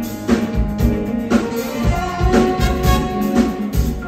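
Live band music from a drum kit and a horn section of saxophones and trombone, with a steady beat of about two drum hits a second under held horn notes.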